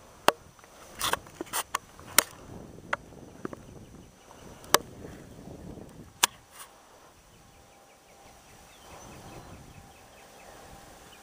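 A run of sharp, irregular clicks and taps, about nine in the first seven seconds, then a faint outdoor background.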